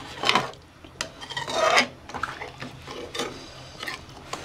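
A ladle stirring and scraping along the bottom and sides of a pressure cooker pot of rice, chicken and water, in a few irregular rasping strokes, the strongest about one and a half seconds in.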